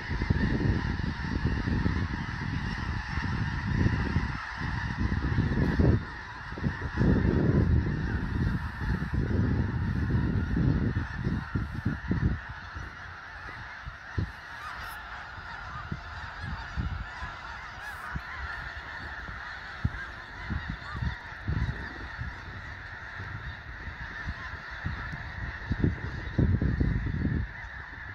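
A dense, continuous chorus of thousands of snow geese calling together as a large flock takes off and settles. A gusty low rumble lies under it, strongest for the first twelve seconds and again near the end.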